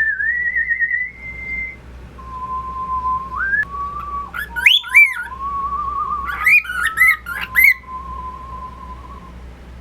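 Whistling and chirping: long, slightly wavering whistled notes, first higher and then lower, broken about halfway through by two clusters of sharp rising and falling chirps, then fading out near the end.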